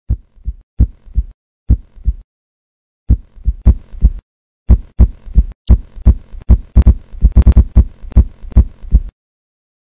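Low thumping beats in close lub-dub pairs, like a heartbeat. They start spaced out with silent gaps, then grow faster and denser with more layered sound from about three seconds in, and cut off abruptly near the end.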